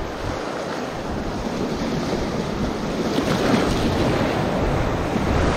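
Sea surf washing and breaking over a shallow rocky reef, with wind buffeting the microphone; a steady rush of noise that grows slightly louder.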